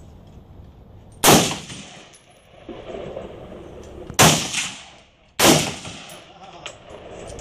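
AR-15-style rifle in .223 firing single shots: three sharp cracks, the first about a second in and the other two about a second apart near the middle, each trailing off in a short echo.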